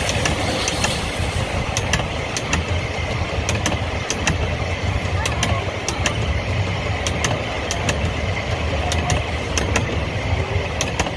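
Small passenger cars rolling past close by: a steady rumble of wheels on the rails with a sharp click or clack about every half second as the wheels cross rail joints.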